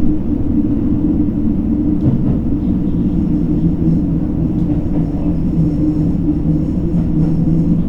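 Cabin running sound of a JR Hokkaido H100-series diesel-electric railcar: a steady low drone from the engine, generator and traction motors. About three seconds in, a low hum settles into a steadier tone, with faint high whines above it.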